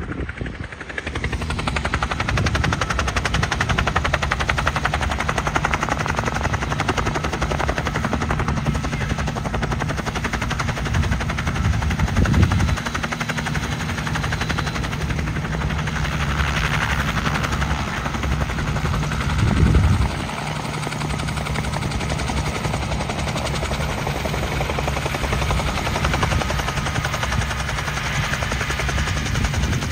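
Bell 47 helicopters running with their rotors turning, a steady, rapid chop of the blades over the drone of the piston engines. It swells louder briefly twice.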